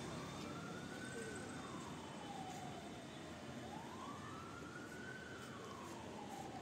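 Emergency vehicle siren in a slow wail, rising and falling twice, over the steady noise of street traffic.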